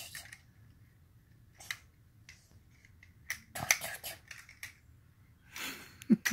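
Plastic clicks and snaps of a transforming toy robot's parts being turned and pressed together by hand. The clicks are scattered, with a quick cluster about three and a half seconds in.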